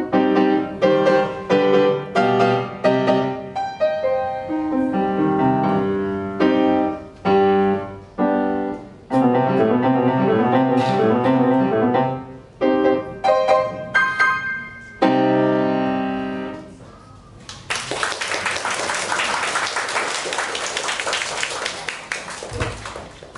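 Grand piano played solo, with fast runs and chords; the last chord rings away about 17 seconds in. From about 18 seconds on, the audience applauds.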